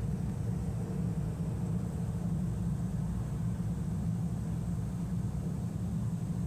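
Steady low rumble: an even background noise with no bangs, pops or other distinct events.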